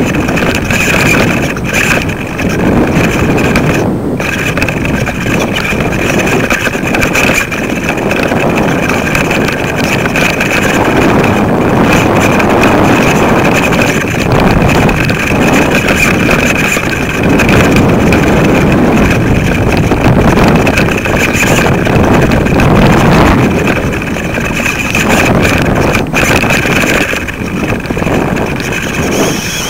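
Wind buffeting the microphone of a kite-lifted camera rig, a loud rushing that swells and dips with the gusts, with a steady high whine running through it.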